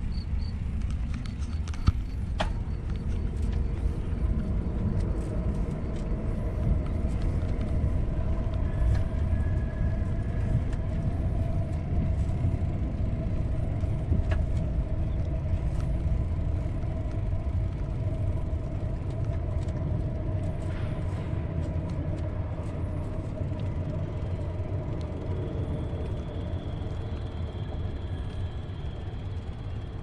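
Bicycle riding on an asphalt path: a steady low rumble of wind buffeting the camera microphone and tyre noise, with a faint steady hum and scattered light clicks.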